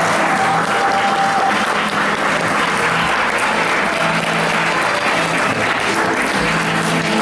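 Audience applauding steadily in a theatre, with music playing underneath.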